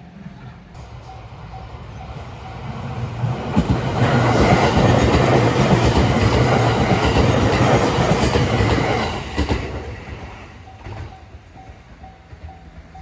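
A train passes over a level crossing, its wheels clattering over the rail joints in quick, loud knocks. The clatter builds over a couple of seconds, stays at its loudest for about five seconds, then fades. Near the end a level-crossing warning bell rings in steady, evenly spaced dings.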